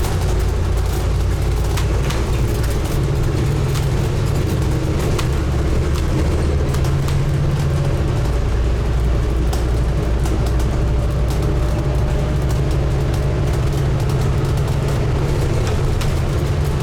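Scania N250UD double-decker bus engine running under way, heard from inside the bus, with its pitch shifting a few times as the bus changes speed. Small clicks and rattles from the bus body come through throughout.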